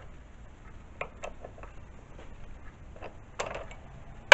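Light metallic clicks and taps of small steel parts and hand tools being handled on a workpiece, a short scratchy sound about three and a half seconds in, and one loud knock at the very end.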